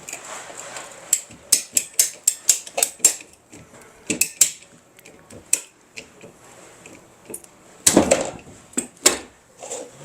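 Irregular sharp metallic clicks and clacks of hand tools and plumbing fittings being handled, coming in quick runs of several, with a heavier clatter about eight seconds in.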